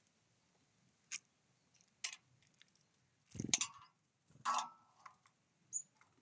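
Small birds at a feeder: scattered light taps and pecks, two louder scuffles in the middle, and a short high chirp near the end.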